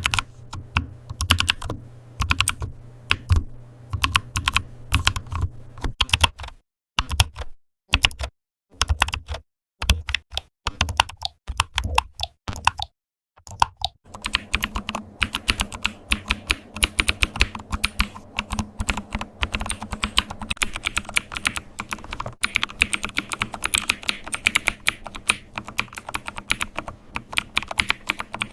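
Keyboard keys clicking and tapping fast. In the middle they come in short bursts with dead-silent gaps between them, then from about halfway the clicking runs on unbroken over a faint steady low hum.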